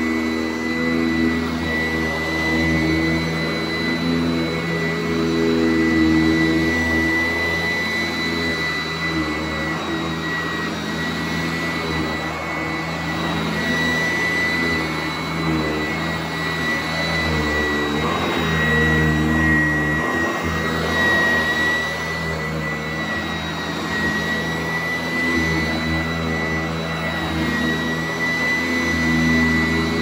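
Sanitaire S675 upright vacuum cleaner running on a rug. Its plastic-top motor makes a steady high whine over a low hum.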